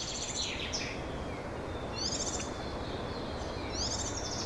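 Tui calling: short, high chirping phrases repeating about every two seconds over a faint steady hiss.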